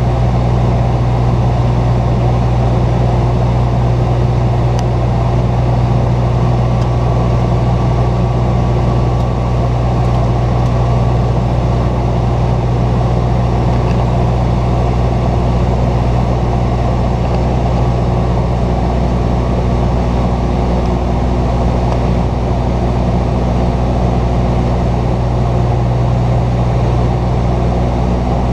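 Bombardier Dash 8-100's twin turboprop engines and propellers droning steadily in cruise, heard inside the cockpit as a deep, even hum with a few steady low tones.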